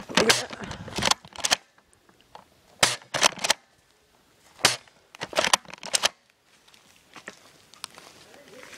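Airsoft guns firing: sharp snapping shots, singly and in quick pairs, over the first six seconds or so, then only faint ticks.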